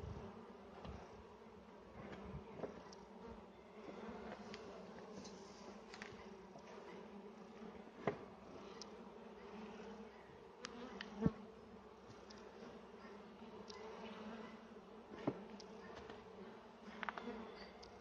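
Western honeybees buzzing steadily around an opened wooden hive box, a low, even hum, with a few sharp knocks as the hive is handled, the loudest about eight, eleven and fifteen seconds in.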